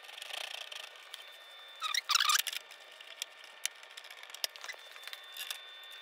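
Hand screwdriver driving T27 Torx bolts into a motorcycle fairing: small metal clicks and scrapes of the bit and bolts, with a louder short squeaking scrape about two seconds in.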